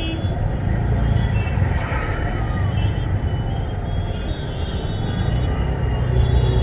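Steady running noise of an auto rickshaw's Bajaj four-stroke engine driving through a flooded street, its low rumble mixed with tyres going through standing water.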